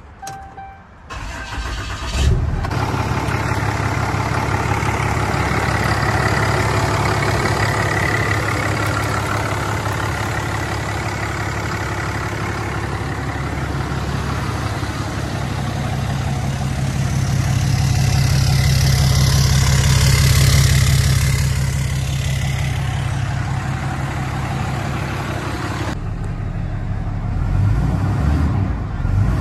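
2012 Ram 5500's 6.7-litre Cummins inline-six turbodiesel starting about two seconds in, then idling steadily. It grows louder for a few seconds in the middle before settling back.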